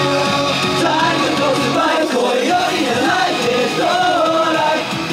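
Upbeat pop song with male group vocals over a full backing track, sung in a dance-vocal group's live stage performance.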